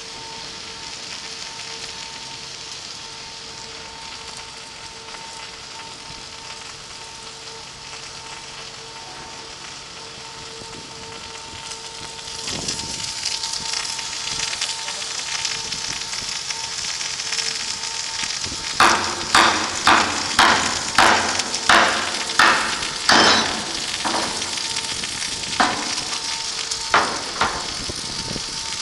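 Steady hiss of rain, which grows louder about twelve seconds in, over a faint steady hum. Later comes a run of about ten sharp knocks, roughly two a second, and a few more near the end.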